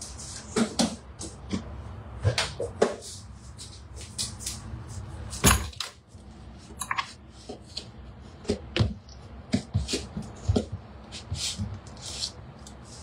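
Kitchen handling noise: scattered clicks, knocks and light clatter of containers and utensils being moved about as sugar and a tablespoon are fetched, with one louder knock about five and a half seconds in. A low steady hum runs underneath.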